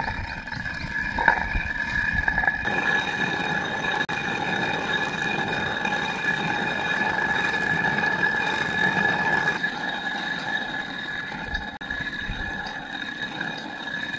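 Hand-turned stone quern (chakki) grinding whole moong beans into split dal: a continuous gritty rumble of the upper stone rotating on the lower. A steady high-pitched whine sounds above it.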